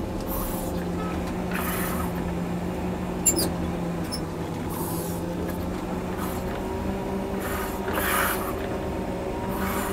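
John Deere 670G motor grader's diesel engine running steadily under working load, with a few brief passing swells of rough scraping noise and a short click about three seconds in.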